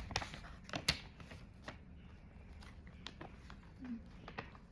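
Paper rustling and light handling taps, as of a picture book's page being turned, with a few soft clicks in the first couple of seconds.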